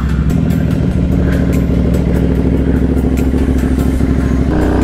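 Royal Enfield 650 parallel-twin motorcycle engine running steadily, its pitch stepping up near the end as the revs rise.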